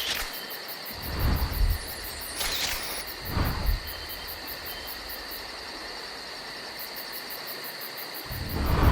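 Insects chirping steadily in a high, rapid pulse, with several short whooshes about one, two and a half and three and a half seconds in, and a louder one near the end.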